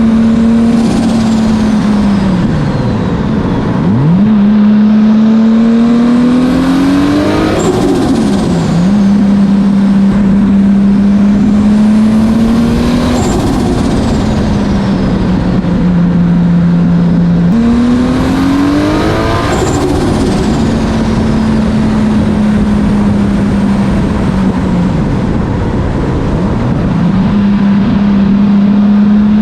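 Swapped 2JZ-GTE turbocharged straight-six in a Nissan Cefiro, driven hard in low gears. The revs hold, climb, and then dip sharply every four to six seconds as the driver gets on and off the throttle.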